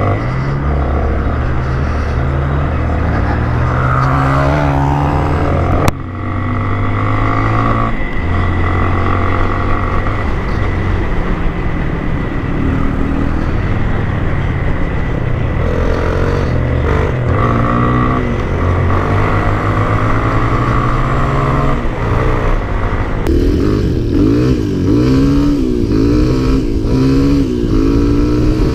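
Honda single-cylinder four-stroke dirt bike engine running under way, its pitch stepping up and down with throttle and gear changes, with a sharp knock about six seconds in. Near the end the sound switches to another dirt bike's engine, revving in quick rises and falls.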